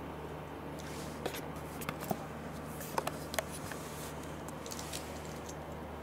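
Welsh corgi chewing a small biscuit treat taken from a hand: a few short, sharp crunches in the first three and a half seconds, with fainter ones later, over a steady low hum.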